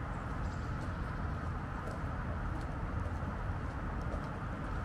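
Steady city street ambience: a continuous low rumble of distant traffic, with a few faint clicks now and then.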